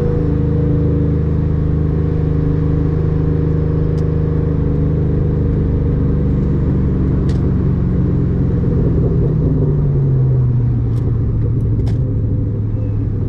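Car engine running steadily while driving, its drone dropping a little in pitch about ten seconds in as the revs ease off.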